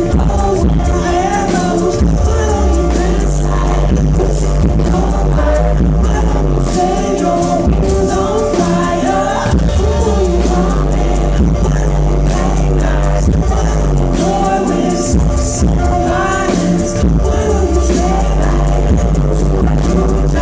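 Live indie rock band playing loudly: a male lead vocal over electric guitar, a steady bass line and drum hits.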